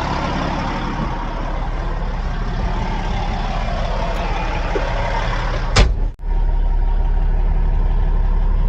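Caterpillar bulldozer's diesel engine running steadily with a low drone, with one sharp knock about six seconds in.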